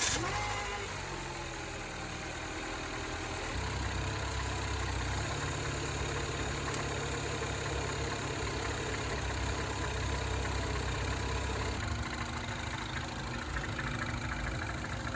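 A 2009 Mini Cooper S's turbocharged 1.6-litre four-cylinder engine idling just after a cold start, freshly filled with 5W-30 oil. The idle grows a little louder a few seconds in, and its note shifts slightly near the end.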